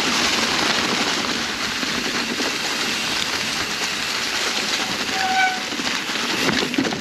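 Mountain bike rolling fast over a rough, rocky creek-bed trail: a steady clatter of tyres, frame and drivetrain rattling, with a short high squeal about five seconds in.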